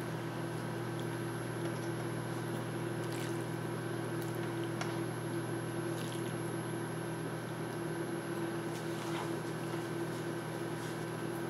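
Melted butter and pan juices spooned from a frying pan over a bowl of venison and vegetables: faint wet drips and a few light clicks of the plastic serving spoon, over a steady low hum.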